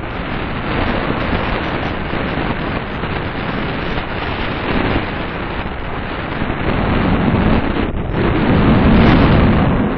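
Wind buffeting a paraglider pilot's camera microphone in flight: a loud, steady rushing noise that dips briefly about eight seconds in, swells louder just after, and falls away sharply at the very end.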